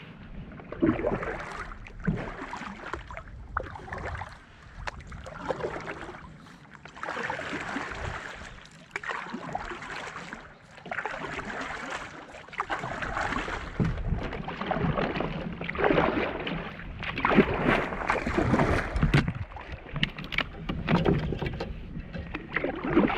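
Double-bladed kayak paddle stroking through creek water: repeated splashes and drips about every second or two as the blades dip and pull on alternate sides of a plastic sit-on-top kayak.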